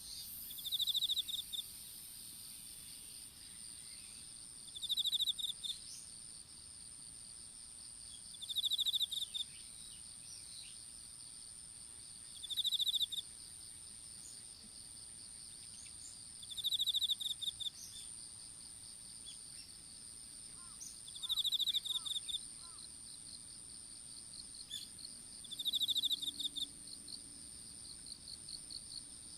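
Insects singing. A steady high whine and a continuous fast pulsing trill run underneath, and a louder rapid chirping burst of about a second comes back roughly every four seconds.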